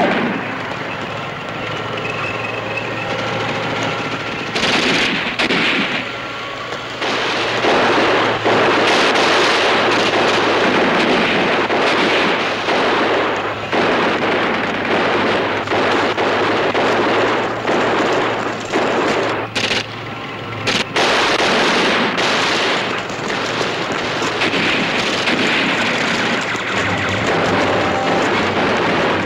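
Continuous gunfire of a staged battle: rapid machine-gun and rifle fire, dense throughout with a couple of brief lulls.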